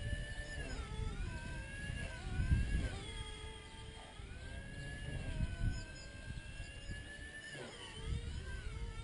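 Blade mCP X micro RC helicopter flying, its motor and rotor whine dipping and rising in pitch several times as it manoeuvres, with a deep dip near the end. Bursts of low rumble lie underneath.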